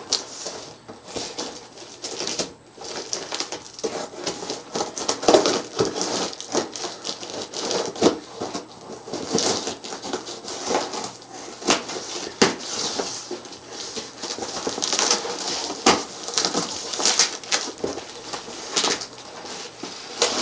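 A large cardboard shipping box being opened by hand: plastic packing straps cut with scissors, then cardboard flaps and packaging crackling and rustling, with many irregular clicks and scrapes.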